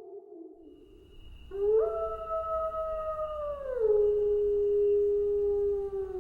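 Wolves howling: one howl falls away and ends about half a second in, then a new long howl rises in about a second and a half in, holds level, steps down to a lower pitch partway through and holds again until it falls off at the end.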